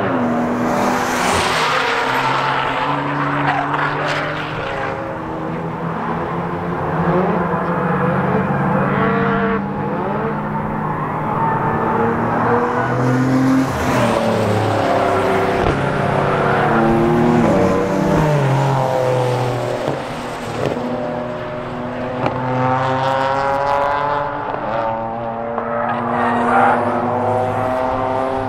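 Several cars' engines and exhausts sounding as the cars come through a pair of circuit corners one after another at track-day pace. The engine pitch falls and rises again as they lift off and accelerate, with more than one car heard at once.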